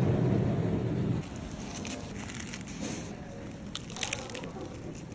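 Crisp crunching as teeth bite into a seaweed-wrapped tuna mayo triangle kimbap, loudest about four seconds in. A low rumble of background noise runs through the first second.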